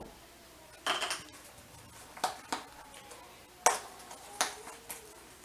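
Cardboard game tiles being punched out of a printed punchboard sheet, giving a handful of sharp separate snaps and taps, about six in all, the loudest a little past halfway.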